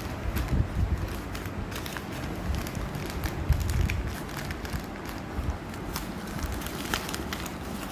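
Low, uneven rumbling handling noise with scattered small clicks and crackles.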